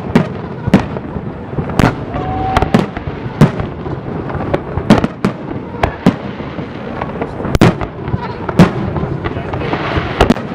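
Aerial fireworks shells bursting in a fast, irregular series of sharp bangs, about a dozen in ten seconds, over a continuous crackle from the display.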